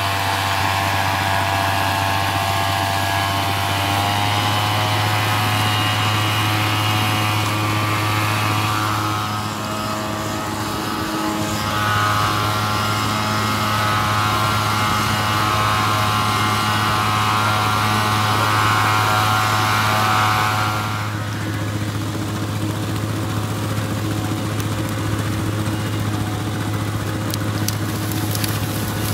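Small engine of a backpack motorized blower used to broadcast rice seed, running steadily at working speed with a whine that shifts in pitch. About two-thirds of the way through, the higher whine drops out, leaving a steady lower engine hum.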